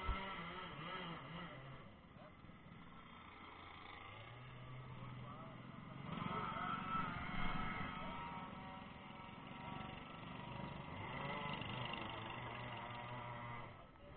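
Several go-kart engines idling with wavering pitch, growing louder about six seconds in.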